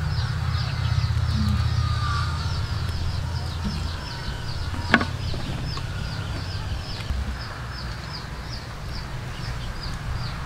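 Outdoor background of short high chirps, evenly repeated at about three a second, over a low rumble, with one sharp click about five seconds in.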